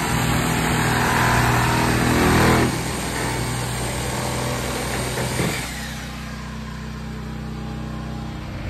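An engine running with its revs dropping in two steps, about two and a half seconds in and again about five and a half seconds in, then settling to a quieter, steady low run.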